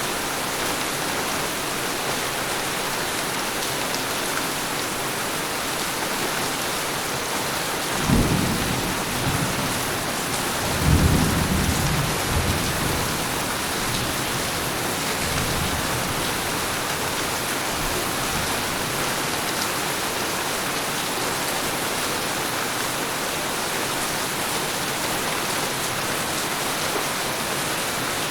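Tropical storm: heavy rain and wind keep up a steady hiss, broken by two rolls of thunder, a sudden one about eight seconds in and a longer, louder one from about eleven seconds in that rumbles away over several seconds.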